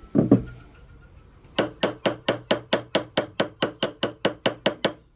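Ball peen hammer lightly tapping an 18 karat gold ring to stretch it up in size: two knocks at the start, then a steady run of about sixteen quick taps, roughly five a second, each with a thin metallic ring. The taps are kept light because 18 karat gold is soft.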